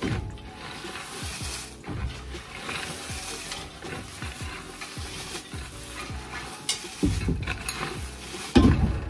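Wood chips being raked and scraped across the shed floor, a continuous scratchy rustle, with a couple of louder bumps near the end.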